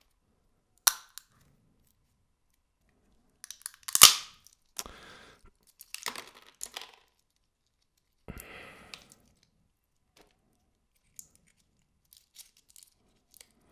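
Walnut shell cracking in bare hands: a light click about a second in, then a loud sharp crack about four seconds in, followed by shorter crackling and rustling as the shell pieces are handled.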